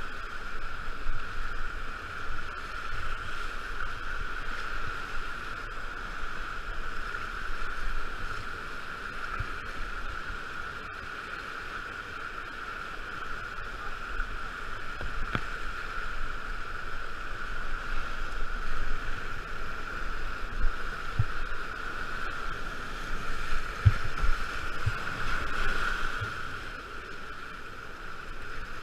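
Rushing whitewater of a river rapid heard from a kayak running it, a steady roar with a few low thuds in the second half.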